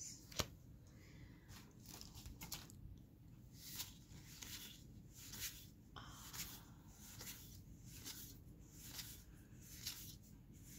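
Faint rustling and crackling of a booster pack's wrapper and Magic: The Gathering cards being slid through by hand, with one sharp tick about half a second in.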